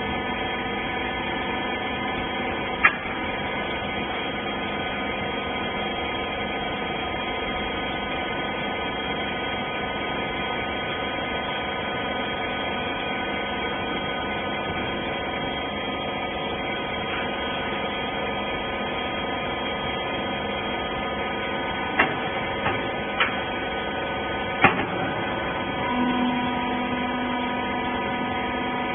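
Rag baler machine's hydraulic power unit running with a steady hum. There is a single sharp knock a few seconds in, a cluster of four knocks later on, and a steady low tone that joins near the end.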